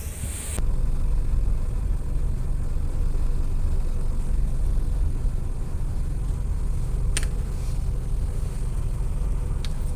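Tug's engine running, a steady low rumble heard aboard the vessel. A brief hiss at the very start cuts off about half a second in.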